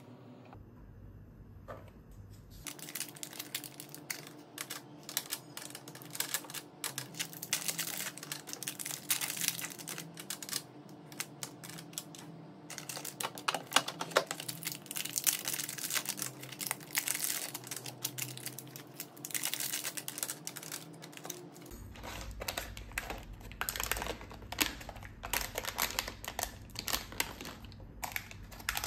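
Small clear plastic bags crinkling and rustling as hands handle and open them, with a dense, irregular run of small clicks and taps.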